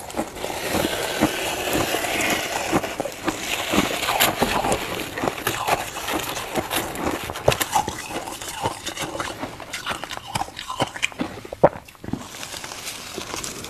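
Frost being bitten and chewed: a dense run of crisp crunches and sharp cracks, thickest in the first few seconds, with one loud snap shortly before the crunching thins out near the end.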